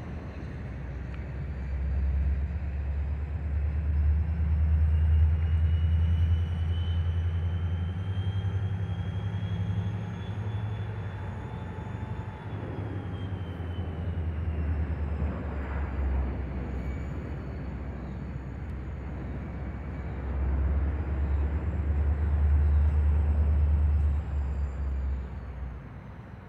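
Distant diesel locomotive running, a low engine rumble that swells twice, with a faint high whine slowly rising and then falling in pitch.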